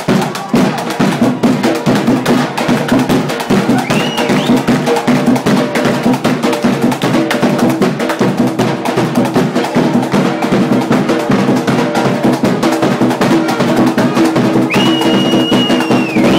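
Percussion band drumming a fast, steady rhythm over sustained low notes. A long, steady high-pitched tone sounds for about a second and a half near the end.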